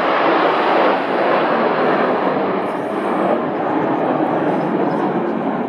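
Formation of Red Arrows BAE Hawk T1 jets passing overhead: a steady jet engine rush with no distinct tone, easing a little near the end.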